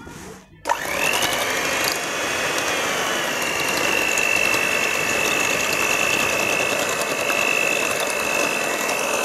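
Electric hand mixer switched on about a second in, its motor whine rising and then holding steady as the twin beaters whip cream in a glass bowl.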